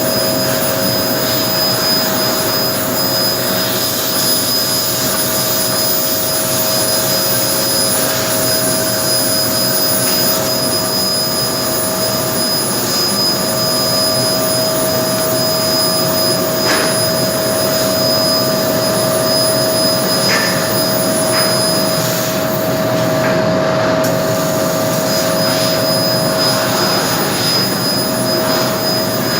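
A 1500 W fiber laser cutting machine running: a loud, steady rushing hiss with a constant whine. The highest part of the hiss drops out for a moment about 23 seconds in.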